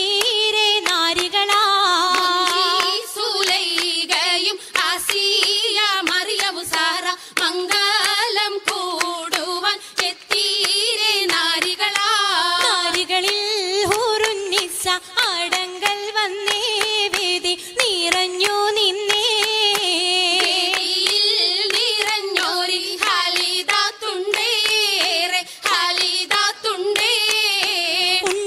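Oppana song: a high female voice singing a Mappila melody over the dancers' rhythmic hand claps, sharp claps landing in time with the song.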